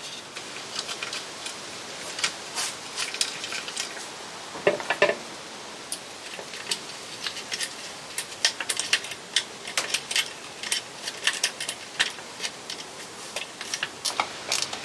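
Irregular small clicks and light metallic clinks of tools and parts being handled during motorcycle wiring work, coming in quick clusters with short pauses.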